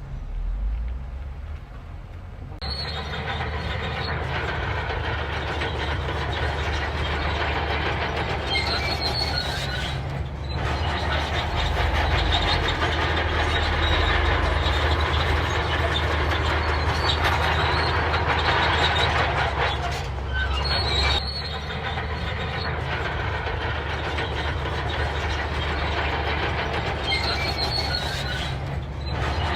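Crawler bulldozer working: its diesel engine runs steadily under the clatter and squeal of its steel tracks. The track noise drops away briefly a few times.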